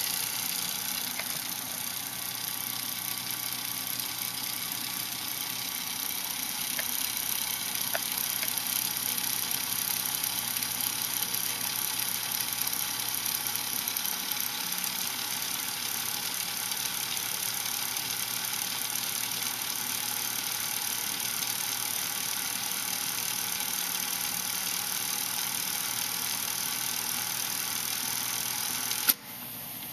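Soundesign boombox cassette mechanism fast-winding the tape, a steady whirring hiss from the motor, belt and spinning reels. It stops about a second before the end, as in the deck's music-search skip to the next song.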